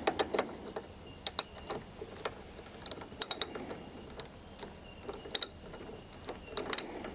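Hands working at a car battery terminal to disconnect it: scattered sharp clicks and small clacks, several coming in quick little clusters.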